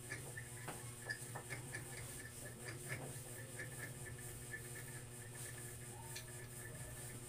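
Quiet room with faint, irregular light ticks and scratches of pencils and crayons on paper at a table, over a steady low hum.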